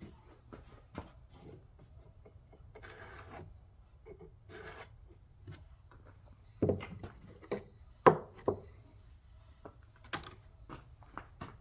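Hand work with tools: two short scraping sounds in the first half, then a series of sharp knocks and clacks, the loudest a little past the middle.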